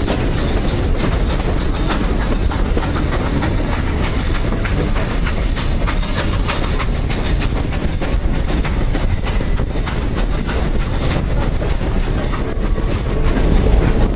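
Steam-hauled passenger train's coaches rolling along the track: a steady rumbling clatter, with many small clicks from the wheels on the rails, growing a little louder near the end.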